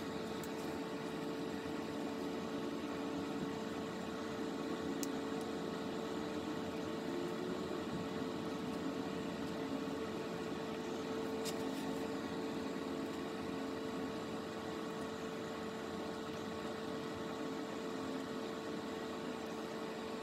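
A steady machine hum with one constant mid-pitched tone, with a couple of faint clicks about five and eleven seconds in.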